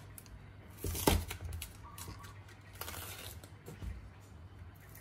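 Kitchen knife cutting through napa cabbage leaves onto a wooden chopping board: a loud chop against the board about a second in, then a few lighter cuts with the leaves crinkling.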